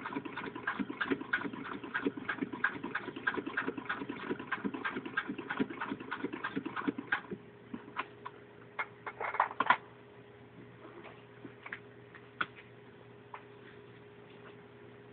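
A 1913 Singer 127 vibrating-shuttle sewing machine turned by hand, stitching through six layers of denim with an even clicking rhythm of about four clicks a second. The rhythm stops about seven seconds in, followed by a few scattered clicks and a short rattle.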